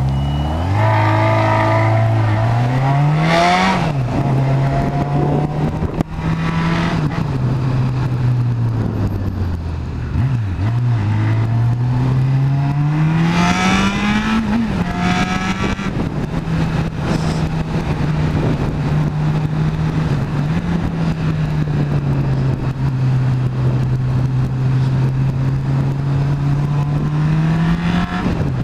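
Sport motorcycle engine pulling away and accelerating through the gears, its pitch climbing and dropping at each upshift, then running at a steady cruise, with wind rush over it.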